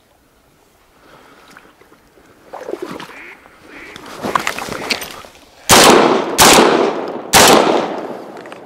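Three quick shotgun shots fired at flushing ducks, a little under a second apart, each fading after the blast. Before them, a few seconds of rustling and splashing as the hunter moves through reeds and shallow water.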